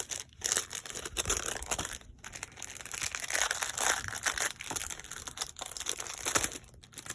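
Packaging of a diamond painting kit crinkling and rustling in irregular bursts as it is handled and opened by hand, with some tearing.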